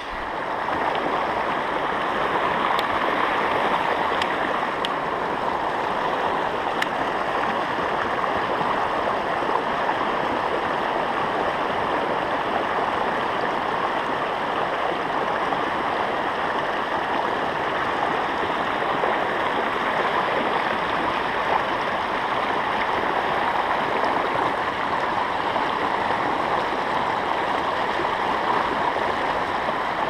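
Fast river current rushing over and around rocks, a steady, unbroken rush of water; the river is running high and fast after heavy rain.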